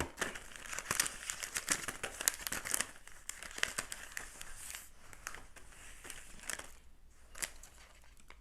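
Plastic snack wrapper crinkling and rustling as it is handled, a dense run of irregular crackles that thins out to a few scattered ones over the last few seconds.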